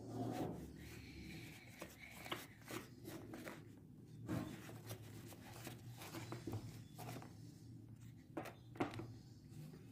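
Metal spoon stirring soft flour dough in a plastic tray: faint scraping with irregular light knocks of the spoon against the tray, over a low steady hum.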